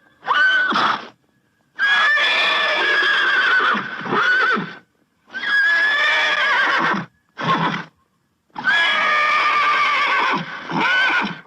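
Horse neighing: a run of about five whinnies, some long and some short, each held high and then falling at the end, with sudden silent breaks between them.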